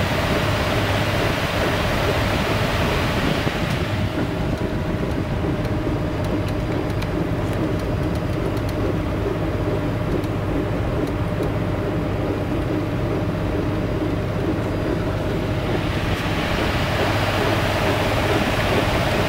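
Washing machine running: a steady motor hum with a constant tone, under a hiss that fades out about four seconds in and comes back about sixteen seconds in.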